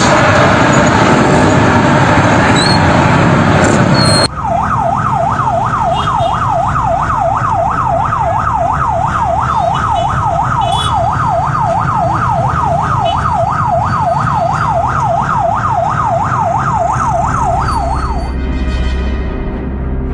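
Fire engine siren in a fast yelp, rising and falling about three times a second. Before it, a loud rushing noise cuts off abruptly about four seconds in, and music comes in near the end.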